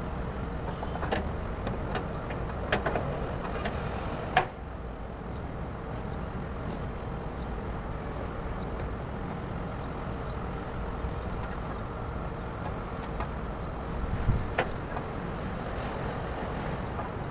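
Hand work on the fan hub of an air-conditioner condensing unit: a few sharp metal clicks and knocks, the loudest about four seconds in and again near the end, over a steady low hum.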